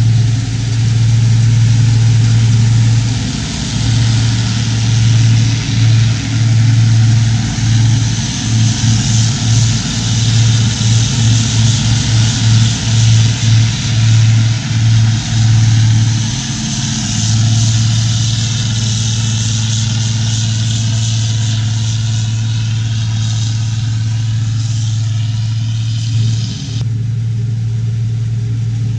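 New Idea Uni-System self-propelled forage harvester running while chopping corn silage: a steady low engine and cutterhead hum over a constant rushing hiss. The hum pulses unevenly for several seconds and then evens out, and the sound changes abruptly near the end.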